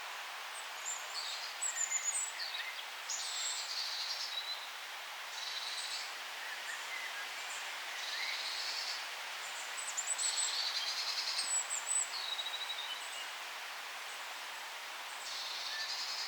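Songbirds singing in a forest: short, high trilled phrases repeating every two to three seconds over a steady background hiss.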